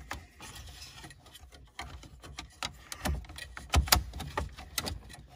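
Hard plastic clicking and knocking as a radio dash-kit trim piece is pushed and snapped into place around a car stereo in the dash, with the loudest knocks about three to four seconds in.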